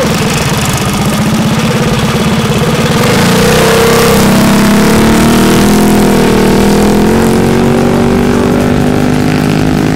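Minibike's small single-cylinder engine running, revving up about three seconds in and then holding at high revs as the bike pulls away.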